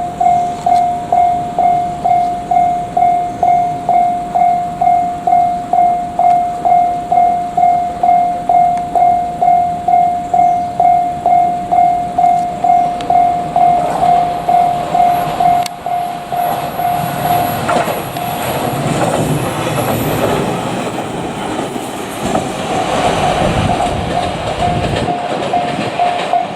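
A Japanese level-crossing warning bell clanging about twice a second, steady. About halfway through, a JR Kyushu 817 series electric train passes over the crossing, its wheels clacking over the rail joints, while the bell keeps ringing underneath.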